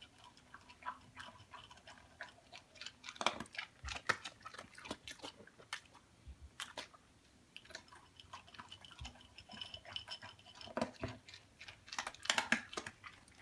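A pet chewing and crunching food: soft, irregular clicks, with a run of louder clicks near the end.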